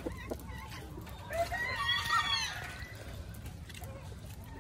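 A rooster crowing once, rising and then held for about a second, starting about a second and a half in, with soft footsteps on wet mud.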